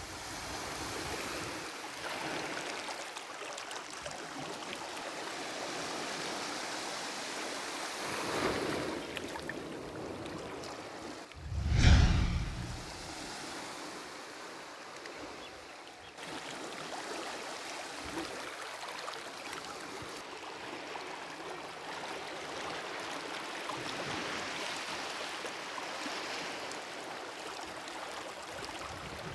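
Shallow water running over sand and small waves washing up on a beach: a steady rushing wash. A brief loud rumble a little before halfway.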